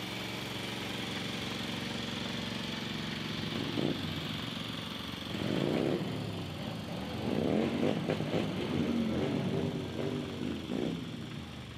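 A vehicle engine idling steadily, then revving up and down several times from about four seconds in.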